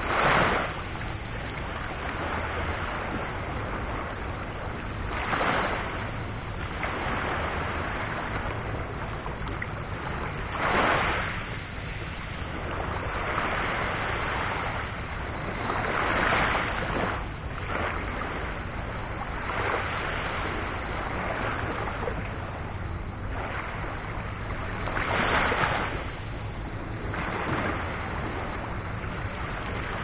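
Small sea waves breaking gently on the shore, a soft rush of surf swelling and fading every few seconds.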